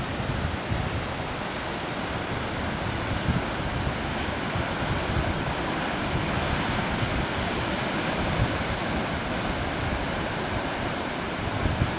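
Pacific surf washing against a rocky shore: a steady rush of waves, with wind buffeting the microphone in low rumbling gusts.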